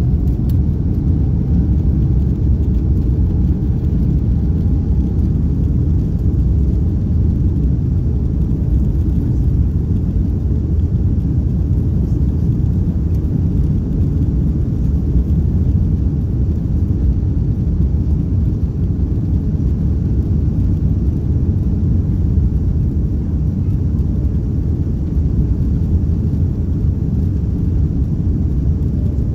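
Steady low rumble inside the cabin of an Airbus A330neo moving along the ground, its Rolls-Royce Trent 7000 engines running, with a faint rising whine in the first few seconds.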